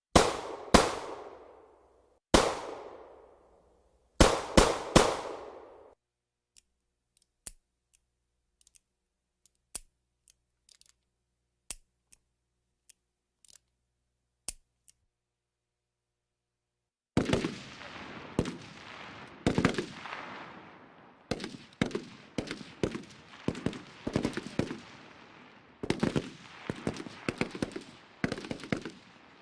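Gunshot sound effects: a few single loud shots with long echoing tails, then a scattering of faint sharp clicks, a short pause, and rapid automatic fire in uneven bursts for the last dozen seconds.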